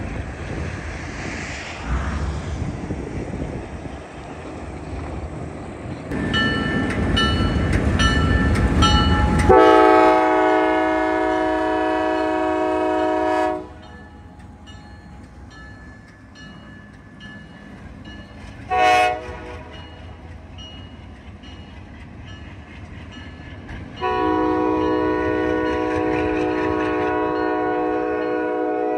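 Diesel locomotive air horn sounding a multi-note chord: a long blast, a short toot about halfway through, and another long blast held through the end. Before the first blast there is a loud rumble.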